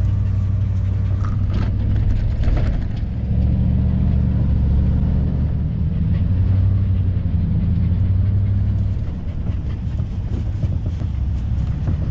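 Engine of a 1987 Class A motorhome heard from inside the cab, running at low speed with a deep drone whose pitch shifts with the throttle a few times. A few light rattles come in the first three seconds.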